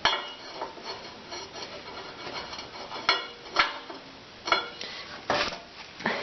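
Metal engine spacers clinking and scraping against a steel lawn tractor frame as they are set in place: about five sharp metallic clanks with brief ringing, and rubbing in between.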